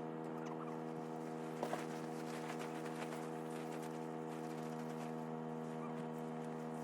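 A steady low mechanical hum made of several even tones, with a couple of faint ticks about a second and a half in.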